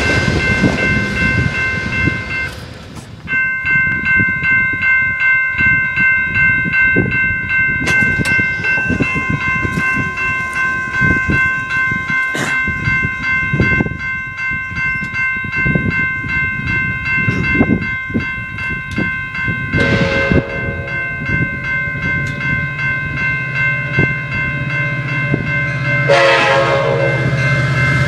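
Railroad crossing bell ringing rapidly, with the clicks of a passing Amtrak train's wheels on the rails. About 20 seconds in, an approaching Amtrak California F59PHI diesel locomotive sounds its horn briefly, then again from about 26 seconds, with its engine's low rumble growing.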